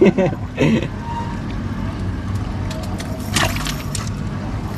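A small engine running steadily with an even low hum, with a short noisy burst about three and a half seconds in.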